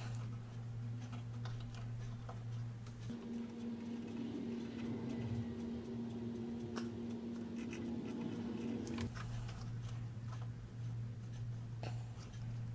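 Faint clicks and scratches of hands twisting stripped wire ends together and soldering the joint, over a steady low electrical hum. The hum shifts to a higher tone about three seconds in and drops back about nine seconds in.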